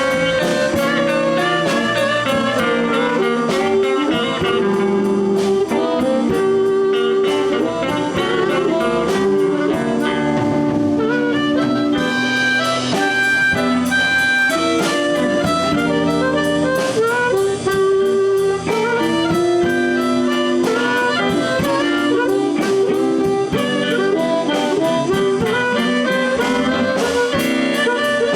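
Live blues band playing an instrumental break: a harmonica solo with long held notes over electric guitar, bass and drums keeping a steady beat.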